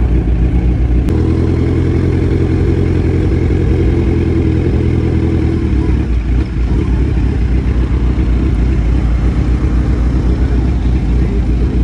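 Kawasaki Z1000 motorcycle engine running steadily at low revs, with a single short click about a second in.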